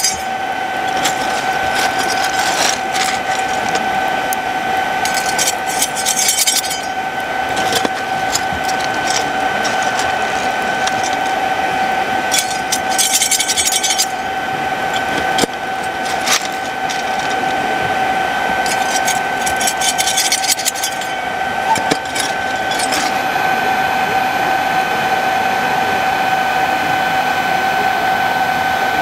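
Steady whine of an electric blower fan on the chimney of a coal-fired 5-inch gauge live-steam model locomotive, drawing the fire while steam is raised. Four or five short bursts of scraping and rattling come as the fire is stirred with a poker through the firebox door.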